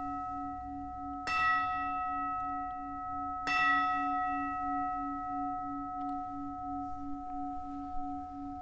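Consecration bell struck at the elevation of the host: two strokes, about a second in and again about three and a half seconds in, each ringing on in several long tones with a low, evenly pulsing hum.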